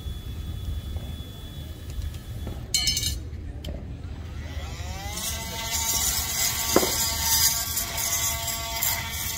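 A small motor spins up about five seconds in: its whine rises in pitch, then holds steady with a strong hiss on top. A steady low rumble lies underneath, with a brief clatter near three seconds and a single sharp knock near the end.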